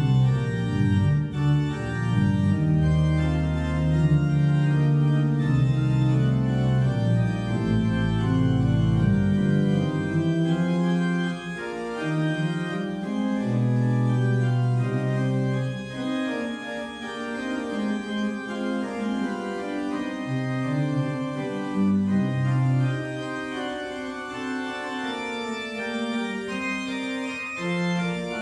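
Organ music playing held chords. Deep bass notes sound under the chords for about the first nine seconds, then the bass drops away and the chords carry on higher up.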